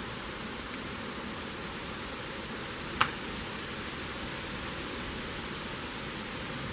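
Steady outdoor background hiss, with one sharp click or knock about three seconds in.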